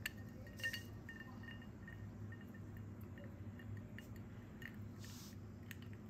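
Ice cubes clinking against the inside of a whiskey glass as it is swirled, the first couple of clinks ringing briefly with a glassy tone, then lighter tinkles. Near the end the glass is set down on a stone countertop with a light knock.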